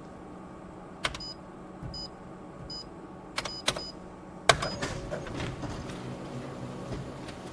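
Office printer or copier with a steady low hum, a few sharp clicks and several short high beeps; about four and a half seconds in, a loud clack and its mechanism starts running louder.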